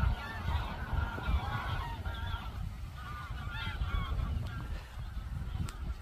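A large flock of wild geese honking in flight, many calls overlapping, thinning out toward the end. A low rumbling noise runs underneath.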